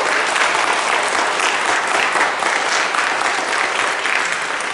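Round of applause: many people clapping their hands steadily.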